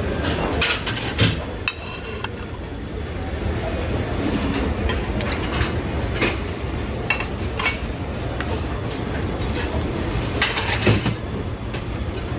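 Metal serving tongs clicking and clinking against crab legs and the buffet's steel tray, a few sharp clicks at a time, over the steady low rumble of a busy room.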